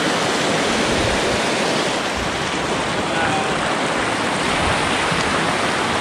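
Steady rushing of river water running over a shallow, stony riffle at the shore.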